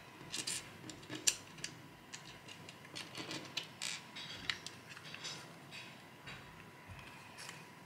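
LEGO pieces being handled: small plastic bricks clicking and rattling as they are picked off a tabletop and pressed onto a base plate, a string of irregular sharp clicks, the loudest about a second in.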